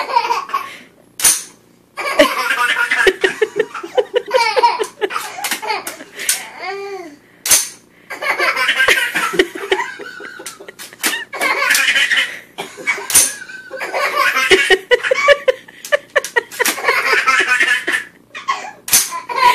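A baby belly-laughing and giggling in long bursts, set off again and again by the sharp metallic clack of an AR-15's bolt being racked, which comes several times about every six seconds.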